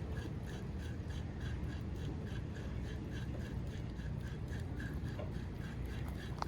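Frogs calling in a steady series of short pulses, about three or four a second, over a low rumble.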